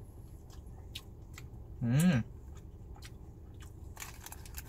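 A person chewing a mouthful of sauced fried chicken, with small wet mouth clicks. About two seconds in comes a short hummed "mmm" that rises and falls in pitch.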